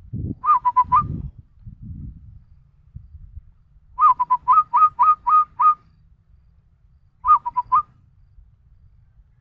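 A person whistling an imitation of a zebra dove's (perkutut) coo: three phrases of short, clipped notes with a quick upward flick, the middle phrase the longest, with pauses between them.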